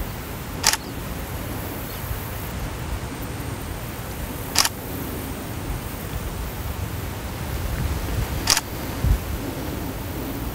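Nikon D600 DSLR shutter firing three times, about four seconds apart, during an auto exposure bracket triggered over USB by a Promote Control. The long gap between frames comes from the slow USB-only triggering with a 3,500 ms delay.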